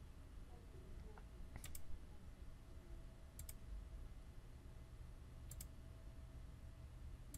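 Computer mouse button clicking every two seconds or so, each click a quick press-and-release double tick, over a faint steady low hum.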